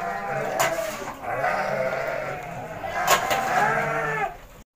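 Penned goats and sheep bleating, several wavering calls overlapping one another, with a sharp click about three seconds in. The sound cuts off suddenly near the end.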